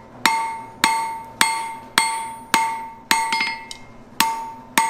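Hand hammer striking hot 3/8-inch round steel rod on the edge of an anvil, drawing out a taper: about eight evenly paced blows a little over half a second apart, each ringing with a clear tone that fades before the next, with one lighter blow past the middle.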